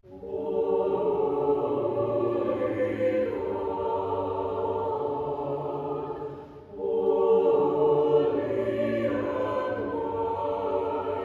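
Mixed church choir of men and women singing a sung phrase together, breaking off briefly about two-thirds of the way through, then starting the next phrase.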